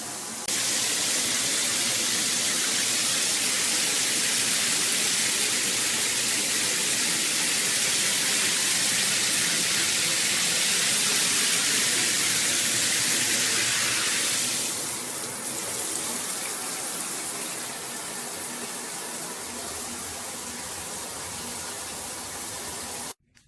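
Water pouring steadily from a 6-inch GURIN rain shower head, a dense hiss of spray. About two-thirds of the way through it becomes somewhat quieter, and it cuts off suddenly near the end.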